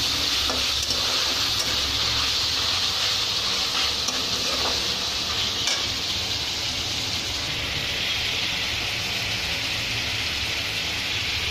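Chicken pieces sizzling steadily as they fry in oil in a wide metal kadai, with a few light spatula scrapes against the pan in the first half.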